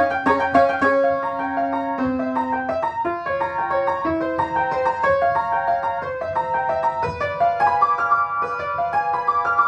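Upright piano being played from a score: a steady flow of notes, several a second, with a few longer low notes held in the first few seconds.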